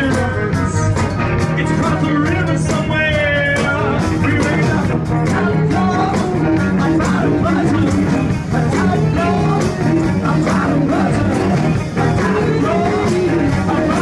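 Live rhythm-and-blues band with a horn section playing loudly: saxophones, electric guitar, bass and drums, with a man singing at the microphone.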